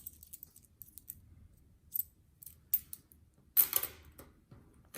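Silver dimes clicking against each other as they are counted and stacked by hand: a scattering of short, sharp metallic clicks, the loudest about three and a half seconds in.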